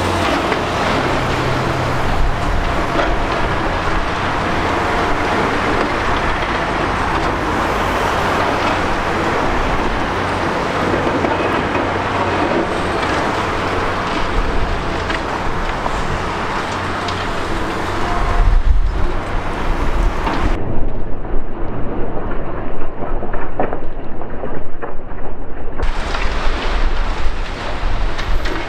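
High-reach demolition excavator at work, its diesel engine running under a continuous crackle and crunch of breaking concrete and debris. From about eighteen seconds in, a heavier low rumble with louder jolts.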